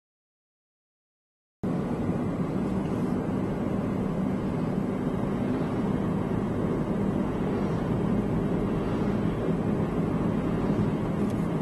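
Complete silence for about a second and a half, then the steady hum of a car's engine and tyres heard from inside the cabin while driving.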